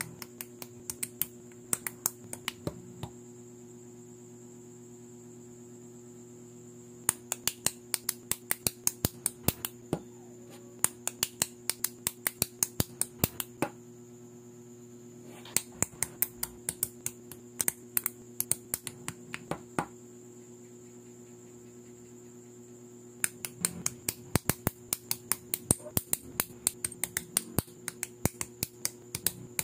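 LEGO-compatible plastic bricks clicking together under the fingers as small parts are pressed on and fitted, in quick runs of sharp clicks broken by pauses of a few seconds. A faint steady hum sits underneath.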